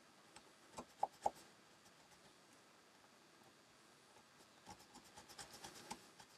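Small modelling chisel scraping raised switch and knob detail off a plastic model cockpit sidewall: a few faint ticks about a second in, then a quick run of fine scratchy scraping near the end.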